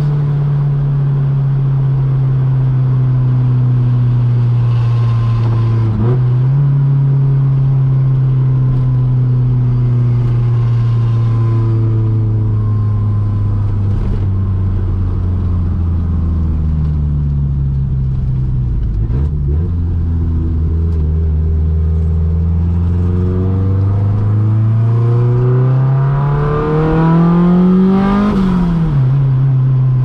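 Turbocharged 1.8-litre four-cylinder engine of a Mk2 Golf GTI with a 76 mm exhaust, heard while driving. The revs sink slowly, with short breaks at gear changes about six and nineteen seconds in. Then they climb steadily in a hard pull that peaks a couple of seconds before the end and drops off sharply.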